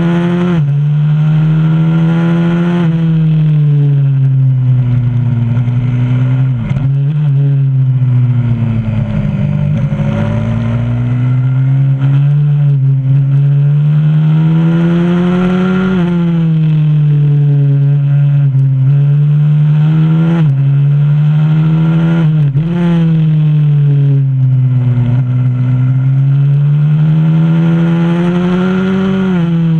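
A 125cc supermoto pit bike's single-cylinder four-stroke engine heard from onboard, revving hard and easing off around a lap. Its pitch climbs over several seconds and falls away again, with brief sharp dips at gear changes.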